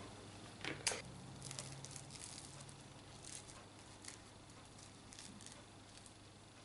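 Faint handling sounds of baked gougères (cheese choux puffs): hands picking a puff off the tray and starting to pull its crisp shell apart, with light rustles and crackles. One sharper click comes about a second in.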